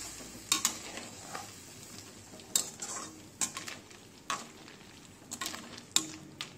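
Perforated metal skimmer stirring snail curry in a metal wok, with irregular scrapes and clinks against the pan over a soft sizzle of the cooking curry.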